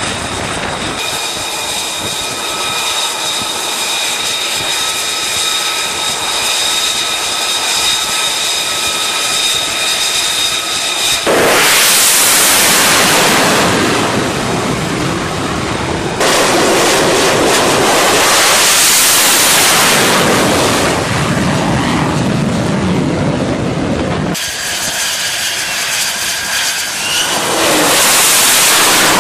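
F-35C's Pratt & Whitney F135 turbofan: a steady jet whine with several high tones for the first third, then loud jet roar that cuts in suddenly. The roar swells and fades three times, with abrupt changes between the passes and a return to the whine near the end.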